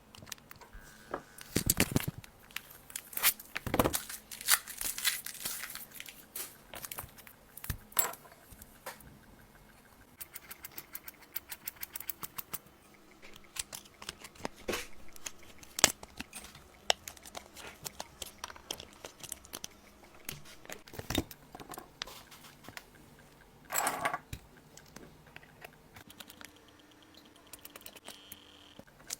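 Small repair tools and parts clicking, tapping and scraping on an iPhone 14 Pro Max being opened for a screen repair, with some tearing and crinkling like adhesive or film being peeled. The clicks come irregularly, in denser clusters at a few points.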